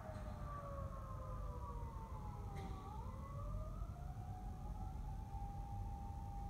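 Emergency vehicle siren wailing, its pitch sliding down for about three seconds, then back up and holding, over a steady low rumble of city traffic.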